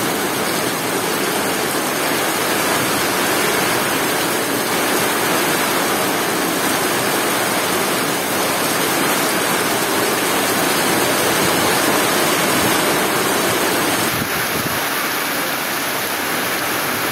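Heavy rain pouring down in a steady, loud, even hiss on a wet road and ground, dropping slightly in level about fourteen seconds in.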